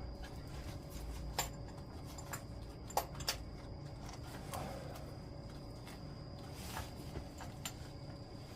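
Scattered light clicks and taps from hands working loose a motorcycle's wiring harness and its connectors, with a faint steady high tone underneath.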